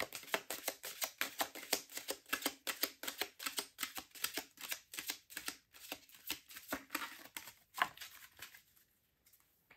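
A tarot deck being shuffled by hand: a quick run of papery card clicks, several a second, that thins out and stops near the end.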